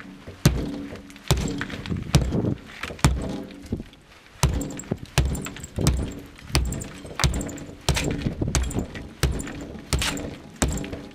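SOG VoodooHawk tomahawk chopping into the wall of a building: about fourteen sharp blows in a steady rhythm, a little more than one a second.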